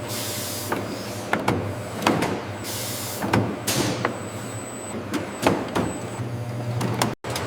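Production-line machinery running with a steady low hum, irregular clanks and clicks, and several short pneumatic air hisses.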